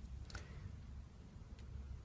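A couple of faint clicks from a lock pick working the pin tumblers of a Mul-T-Lock Garrison padlock's cylinder under tension, over a low handling rumble.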